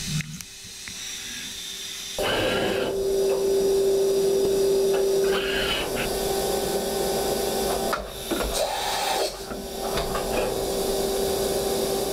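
CNC machining center running: a steady mechanical whine with machine noise starts abruptly about two seconds in. It is broken by clunks and a brief change in sound around eight and nine seconds in, then the steady whine returns.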